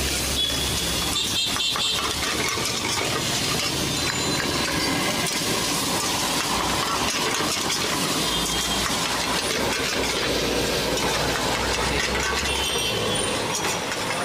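Noodles sizzling in a steel wok over a gas burner, with a metal spatula scraping and clicking against the pan as they are tossed. Steady street noise with engines running lies underneath, with a low hum that comes and goes.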